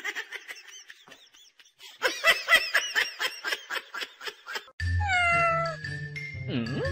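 A tiny poodle puppy giving a rapid string of high squeaky yips, about six a second. Near the end it cuts to a kitten mewing a couple of times, with falling calls over a low steady hum.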